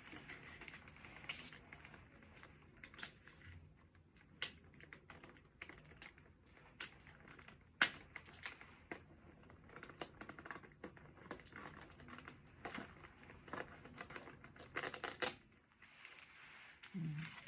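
Irregular light clicks, taps and rustling of small items being handled and fitted into a gift basket, with a sharper knock about eight seconds in and a quick cluster of taps near the end.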